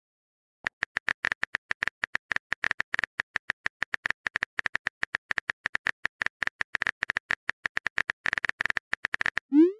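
Rapid phone-keyboard typing clicks from a texting-app sound effect, starting under a second in, followed near the end by a short rising swoosh as the message is sent.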